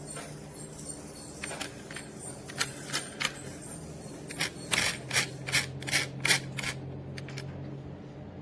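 A series of sharp plastic clicks and taps, about two a second and loudest past the middle, as parts of a cordless stick vacuum are handled over a low steady hum.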